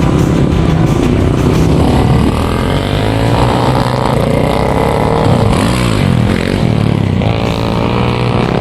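Motocross dirt bike engine running and revving, its pitch rising and falling.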